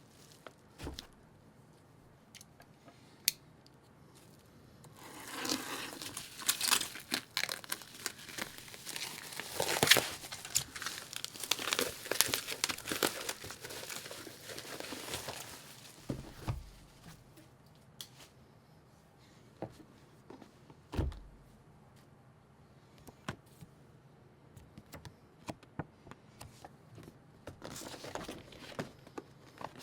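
Packaging being handled and opened: bursts of crinkling and tearing, densest for about ten seconds from around five seconds in. Scattered clicks, a couple of dull thumps and some lighter rustling come before and after.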